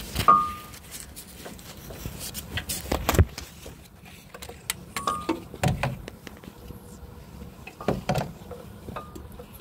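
Metal hand tools and sockets clinking and knocking against metal, with a few short metallic rings.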